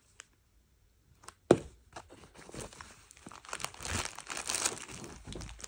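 Crinkling and rustling of packaging as a hand rummages in a fabric tote bag, after one sharp knock about a second and a half in.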